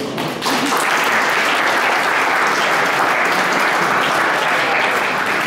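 Audience applauding: steady clapping that starts about half a second in and dies down near the end.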